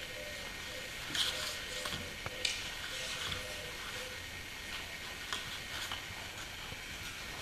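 Quiet room tone: a steady hiss with a faint high whine, and scattered small clicks and rustles, the loudest about a second in and again about two and a half seconds in.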